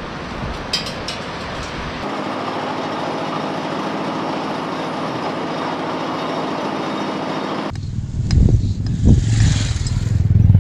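Motor vehicle engine and road noise running steadily, changing abruptly about three-quarters of the way through to a louder, lower rumble.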